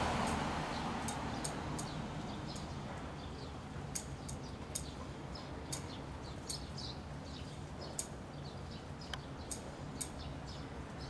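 1979 Honda CBX1000's air-cooled inline-six engine idling steadily through its six-pipe exhaust, a low even hum, while small birds chirp every second or so over it. A passing vehicle fades away in the first second or two.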